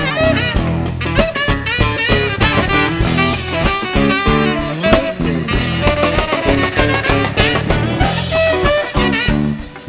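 Band playing an instrumental passage with horns, guitar, bass and drum kit over a steady beat, dipping briefly just before the end.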